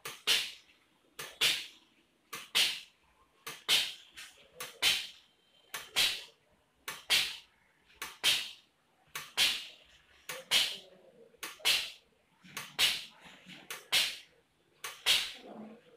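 Flovell automatic pneumatic fluid dispenser firing timed shots at a steady pace of about one a second. Each shot is a pair of sharp air hisses, a short one then a longer one, as a drop of doming resin is pushed from the syringe onto a sticker.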